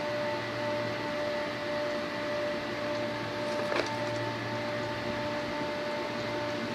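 Steady hum of running HVAC plant machinery, holding several steady tones, with one short click a little past halfway.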